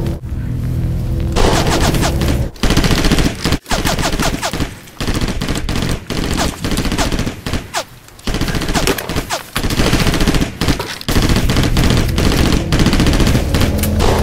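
Bursts of rapid automatic gunfire, shot after shot in quick succession, broken by a few short pauses.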